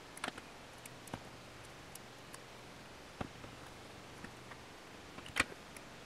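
A few sparse, quiet metallic clicks and taps as a piston ring is worked onto a piston with ring expansion pliers, and the pliers are set down on a metal-topped bench. The loudest click comes near the end.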